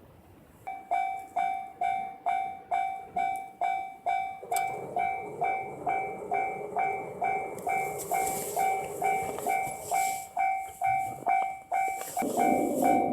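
Railway level crossing warning bell starts about a second in and rings steadily at about two strikes a second. A train's rumble builds beneath it, and the train arrives loudly at the crossing near the end.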